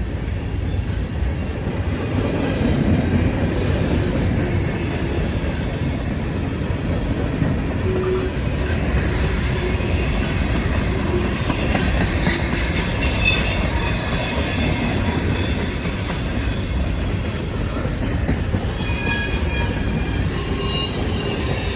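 Mixed manifest freight train's cars rolling past with a steady rumble of wheels on rail. From about halfway through, high-pitched wheel squeal joins in.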